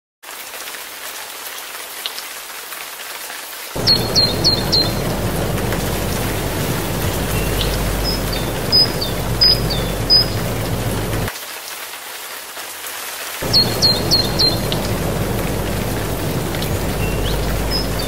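Rushing water of a waterfall, a steady noise that swells much louder about four seconds in, drops back about two-thirds of the way through and swells again. Short high bird chirps come in small groups of three or four over the water.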